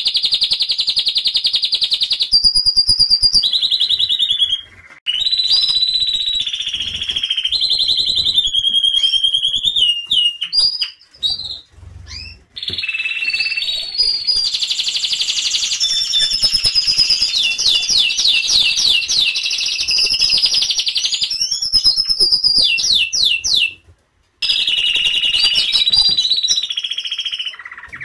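Domestic canaries singing: long, rapid trills and rolls mixed with sweeping chirps, in several phrases broken by short pauses.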